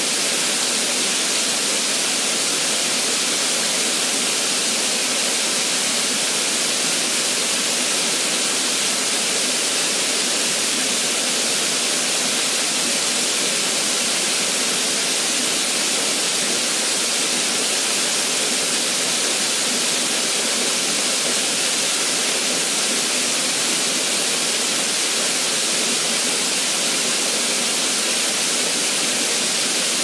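Small waterfall splashing steadily: a thin stream falling over a rock ledge and down a lower two-part cascade into a pool, an even, hissing rush of water.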